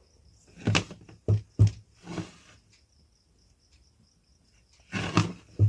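Knocks and clatter of tools and parts being handled on a repair bench: a few sharp taps in the first two seconds and another cluster near the end. A faint high chirp pulses steadily about five times a second under it.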